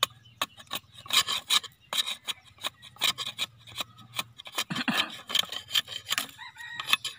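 A machete blade shaving and scraping along the edge of a wooden board, in quick repeated strokes, about three a second.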